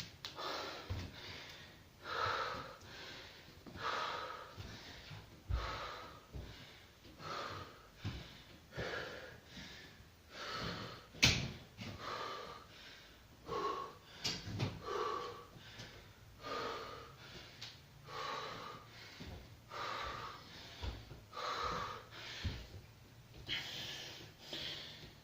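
A person breathing hard through a set of heavy kettlebell squats, a forceful breath about every one and a half seconds. A sharp click sounds about eleven seconds in.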